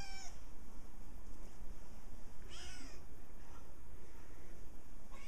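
Kitten meowing: short meows that rise and fall in pitch, one right at the start, another about two and a half seconds in, and a third starting at the very end.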